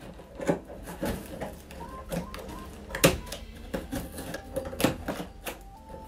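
Scissors snipping through packing tape and cardboard on a parcel: a series of irregular sharp snips, the loudest about three seconds in.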